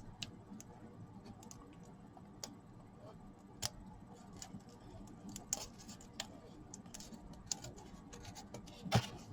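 Scattered light clicks and scratches of a small product box being handled and pried at while trying to open it, with a louder knock near the end.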